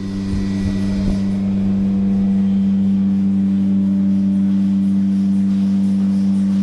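A steady low drone of several held tones, unchanging, with a few soft knocks in the first second or so.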